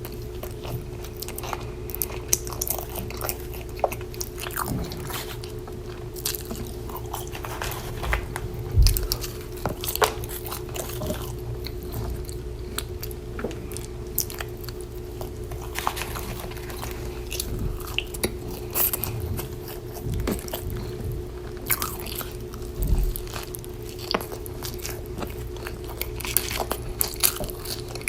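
Close-miked mouth sounds of a person eating a burger and fries: irregular bites, crunches and wet chewing, over a steady low hum.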